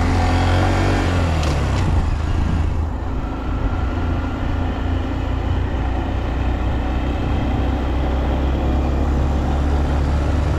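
A 2023 Honda Monkey's 124 cc single-cylinder engine running under way. Its pitch dips and rises again in the first two seconds, then it runs steadily.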